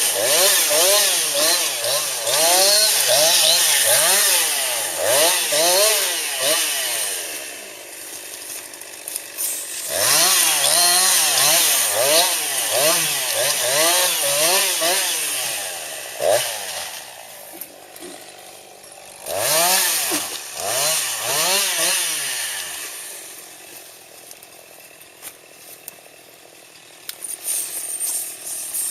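Chainsaw limbing a felled tree, revved up and let back down in quick succession, about twice a second as each branch is cut. It comes in three runs, with the saw dropping to idle between them and idling for several seconds near the end.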